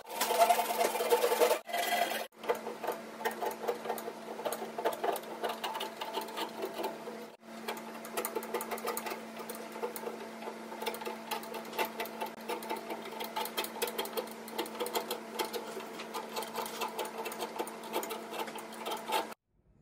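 Hand file rasping back and forth along the grooves of a hand-carved mahogany barley twist, in quick, steady, repeated strokes, with a few brief breaks.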